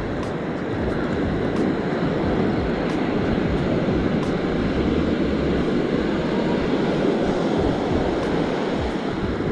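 Steady rushing noise of wind buffeting the microphone over surf breaking on the beach.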